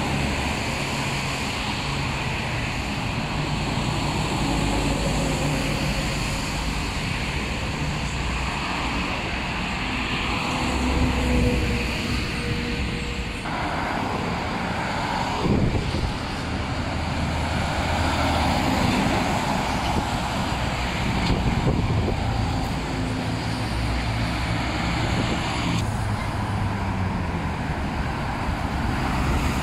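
Steady traffic on a busy multi-lane road: cars and box trucks passing close by, a continuous mix of engine rumble and tyre noise that swells several times as vehicles go past.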